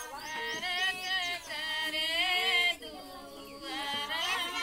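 Women singing together, with a brief pause a little before three seconds in.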